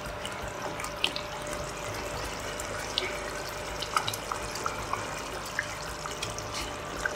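Pot of thick egusi (melon seed) soup simmering on the stove: a steady bubbling hiss with scattered small pops.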